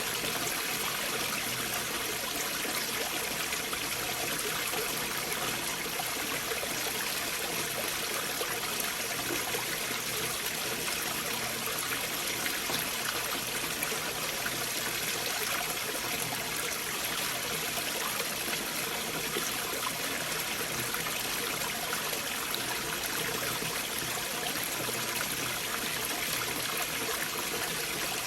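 Stream of water flowing beneath large boulders: a steady, even rush of water with no breaks or sudden events.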